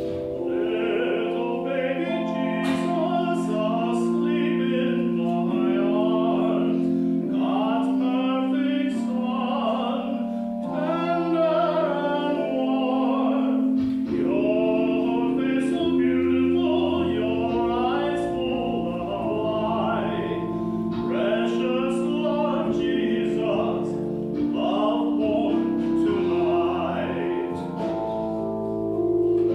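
A solo voice singing a slow song over sustained instrumental chords that change every few seconds.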